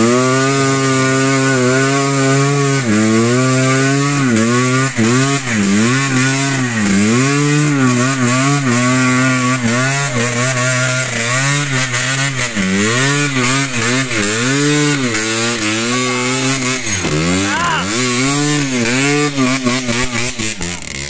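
Trail motorcycle engine revving hard under load as the bike climbs a muddy track. The pitch climbs at the start, then rises and falls again and again with the throttle.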